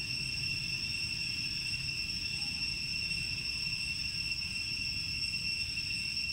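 Insects in the surrounding forest droning steadily in a continuous high-pitched chorus, over a low rumble.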